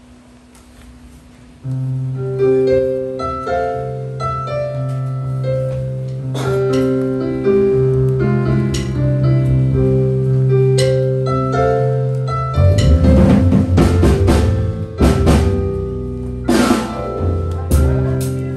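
Instrumental music starts about two seconds in: a keyboard playing a melody over a held bass note. A drum kit joins about two-thirds of the way through.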